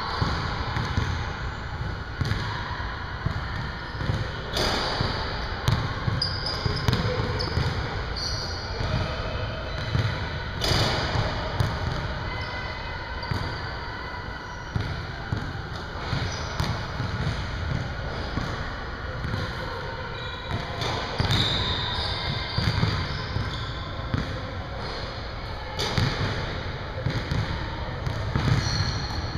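Basketballs bouncing and thudding on a hardwood gym floor at an irregular pace, with occasional short high sneaker squeaks, in a large gym.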